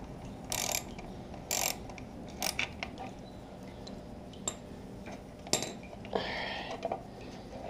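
Scattered clicks and knocks from a socket ratchet and a plastic coolant reservoir as the reservoir is unbolted and worked loose on a 2008 Yamaha YZF-R6, with a short scraping rustle a little after six seconds.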